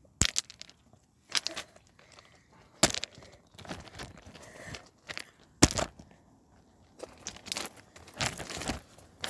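Irregular crunching steps on loose railway ballast stones, with dry twigs and brambles rustling and crackling as someone pushes through undergrowth; a few sharper crunches stand out, the loudest about five and a half seconds in.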